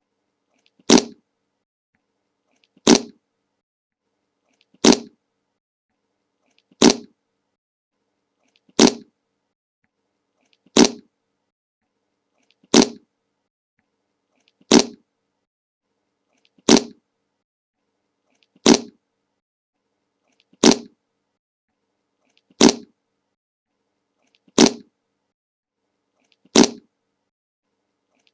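A short fart sound effect played again and again, identical each time, about once every two seconds with silence in between.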